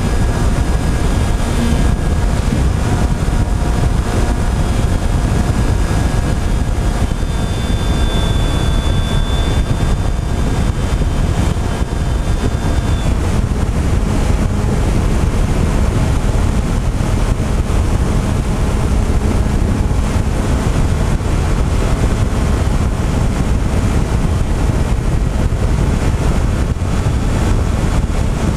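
Wind rushing over the microphone of an FPV drone's onboard camera in flight, a loud steady buffeting. A faint steady whine from the drone's motors sits above it for roughly the first half, then fades out.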